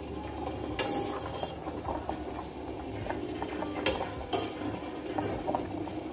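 Milk simmering and bubbling steadily in a steel pot on a gas stove as it is reduced to a thick rabri, with a few sharp clicks: a short cluster about a second in and two more near four seconds.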